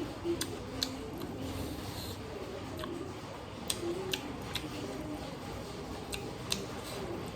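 Close-miked chewing, with sharp, wet mouth clicks and smacks coming at irregular intervals.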